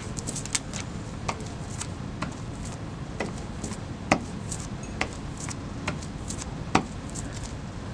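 Hand ink roller rolling back and forth over an inked, wetted Pronto polyester lithography plate: a steady low rolling noise with scattered light clicks and taps, about one a second.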